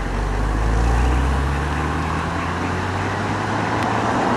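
A motor vehicle's engine running close by, a low hum that rises slowly in pitch and fades out near the end, over a steady background rush.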